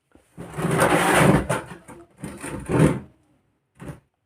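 Scraping or rubbing on a hard surface: a long stroke, a shorter one, then a brief scrape near the end.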